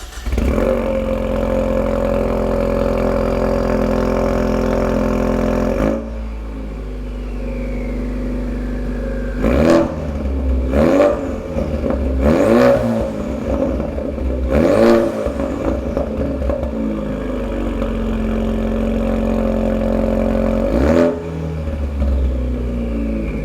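Ford Mustang EcoBoost's turbocharged 2.3-litre four-cylinder running through a Ford Performance by Borla stainless touring cat-back exhaust. It idles high just after start-up, drops to a lower idle about six seconds in, then is blipped five times, each rev rising and falling back to idle.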